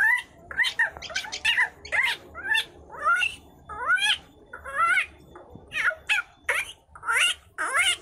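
Young common myna (shalik) giving its food-begging calls while being hand-fed, calling over and over at about two calls a second, each call rising and then falling in pitch.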